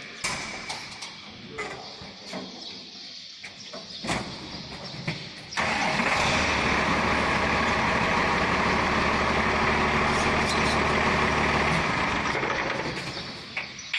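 A few light knocks and clanks, then a loud, steady machine noise with a low hum cuts in abruptly about five and a half seconds in. It runs for about six seconds before dying away.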